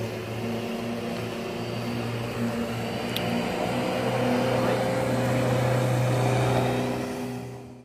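Corded electric rotary lawnmower running and cutting grass: a steady motor hum that grows a little louder past the middle and fades out near the end.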